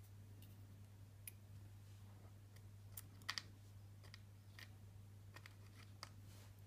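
Faint, scattered small metallic clicks of tweezers and lock pins as pins are set into a practice lock's cylinder, the loudest a couple of ticks about three seconds in, over a low steady hum.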